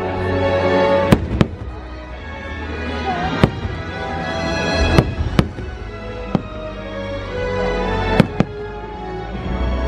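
Aerial firework shells bursting with about eight sharp bangs, some in quick pairs, over loud show music.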